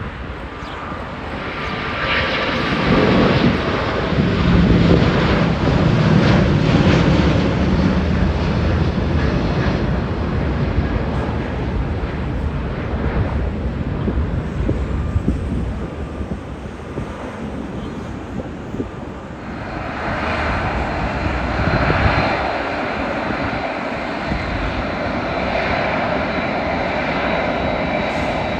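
Airbus A380-800 jet engines at takeoff thrust as the airliner departs, a deep rumble loudest a few seconds in and slowly fading. About twenty seconds in, the sound changes to a second A380's engines at taxi power: a steadier, brighter rush with a thin high whine.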